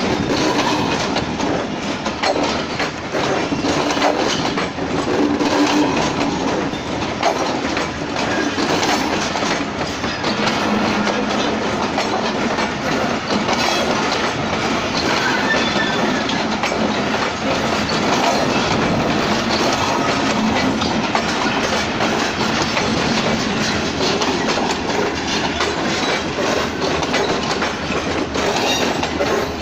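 Train rolling along the track, its wheels clattering steadily over the rails.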